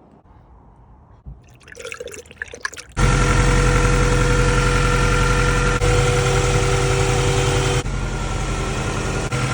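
An Acura Integra's four-cylinder engine starts about three seconds in, after some clatter, and runs at a steady idle.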